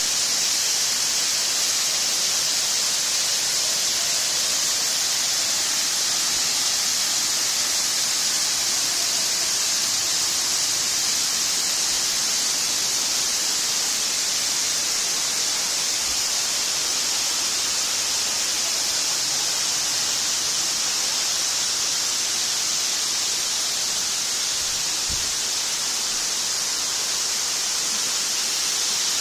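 Waterfall in full spate, at its maximum flow: a steady, unbroken rush of falling water.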